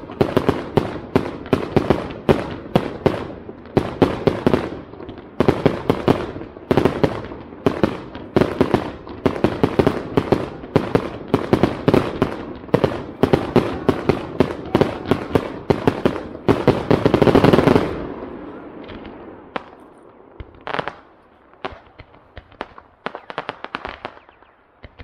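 Aerial fireworks firing in quick succession, many sharp bangs a second. The bangs build to a dense, nearly unbroken run, which cuts off suddenly about three-quarters of the way through, leaving scattered fainter pops.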